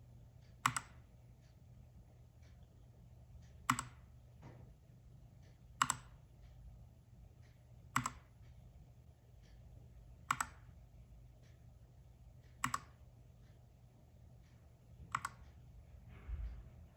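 Keys on a Keychron K2 mechanical keyboard with Gateron red switches being pressed one at a time. There is a sharp click about every two to two and a half seconds, with fainter taps in between and a short rustle near the end.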